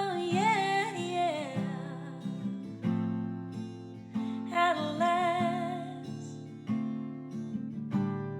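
Background music: acoustic guitar strummed and picked, with a voice singing over it in two phrases.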